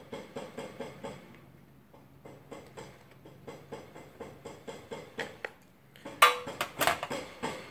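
Small metallic clicks and ticks as a carburettor is turned in gloved hands and worked with a small hand tool, then, about six seconds in, a louder metal clatter as the carburettor is set down in a metal tray.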